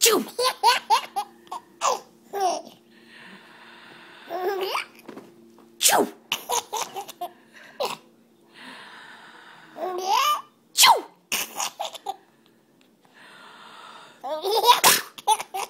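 A woman sneezes several times, and a baby answers each sneeze with bursts of giggling laughter.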